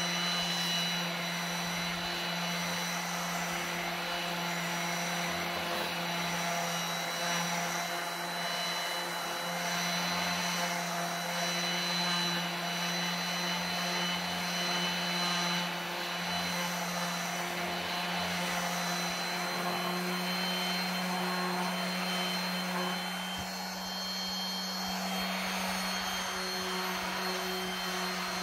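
DeWalt random orbital sander running steadily on a wooden board with a coarse 60-grit disc, held lightly and left to do the work: a constant motor hum with a few steady high whines over the hiss of the abrasive on the wood.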